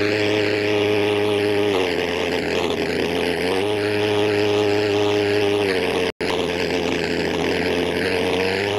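Model aircraft engine running steadily at a buzzing pitch that dips and recovers every couple of seconds. The sound drops out for an instant a little after six seconds.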